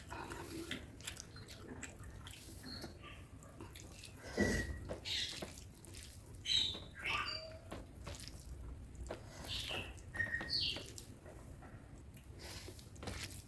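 Close-miked chewing and wet mouth clicks of a person eating chicken curry with rice, coming in irregular bursts.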